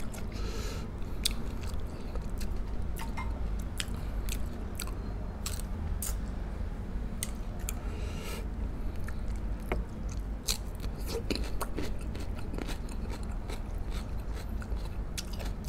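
Close-miked chewing and biting of coconut-braised pork spare ribs, with many irregular sharp wet clicks and small crunches from the mouth.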